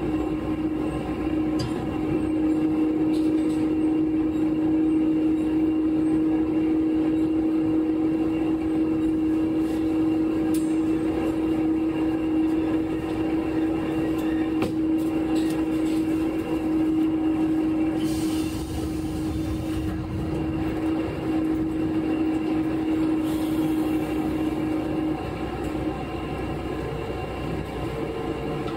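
KiHa 11 diesel railcar running along the line: a steady engine and drive hum over wheel and rail rumble. The hum drops out a few seconds before the end and a higher hum comes in near the end, with two short hisses in the second half.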